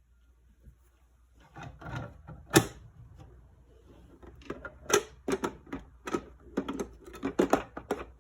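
Irregular sharp plastic clicks and knocks from handling a single-serve pod coffee maker: a single loud click about two and a half seconds in, then a quick run of clicks and taps through the second half.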